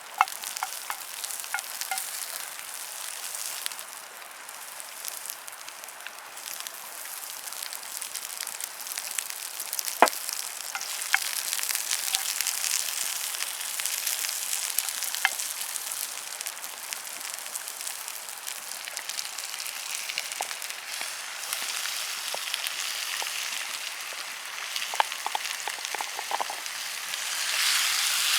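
Food frying and sizzling in a cast iron pan over a campfire, a steady hiss broken by scattered sharp clicks. The sizzle swells louder near the end.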